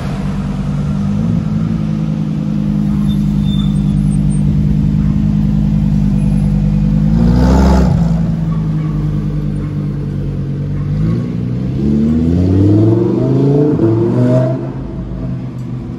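Lamborghini Huracán Performante's naturally aspirated V10 running at low revs, swelling loudest as the car passes about halfway through. It then pulls away with the engine note climbing in a few steps, dropping off near the end.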